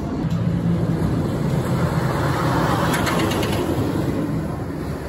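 RMC I-Box hybrid roller coaster train running along its steel track on a wooden structure: a steady low roar with a short rattle about three seconds in, easing near the end.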